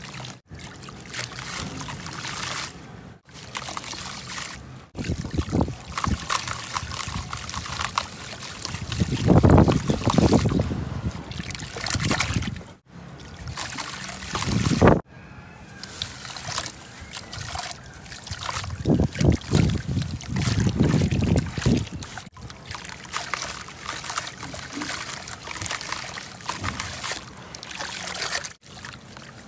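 Hands squeezing and crumbling soft sand-cement chunks under water in a basin: continuous trickling and sloshing, with louder bursts of splashing now and then. The sound drops out for a split second several times.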